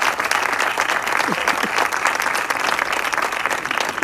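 Audience applauding, a steady dense clapping of many hands.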